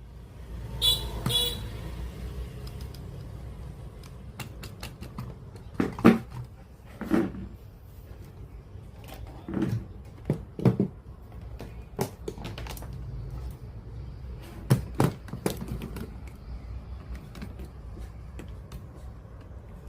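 Scattered clicks and knocks from handling the JVC PC-W100 radio-cassette player during repair, irregular and some with a short ring, over a steady low hum.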